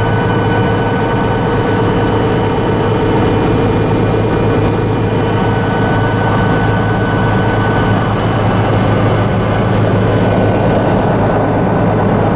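Cirrus SR22 Turbo's six-cylinder piston engine and propeller running steadily, heard inside the cockpit: a loud, even drone with a strong low hum.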